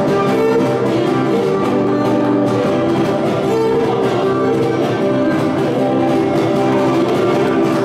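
Live Cretan folk dance music: a Cretan lyra playing the melody over a laouto strummed in a steady dance rhythm.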